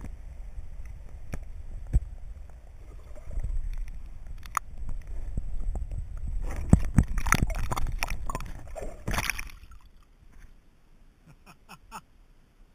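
Muffled water sloshing and gurgling heard through a submerged camera, with a low rumble and scattered knocks. A louder burst of splashing comes about six to nine seconds in. The sound drops away about ten seconds in, leaving only a few faint clicks.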